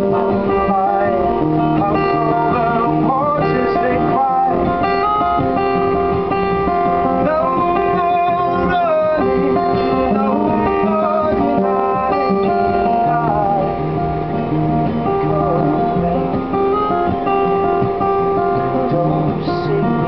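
Live acoustic guitar being strummed steadily, with a man singing over it in places.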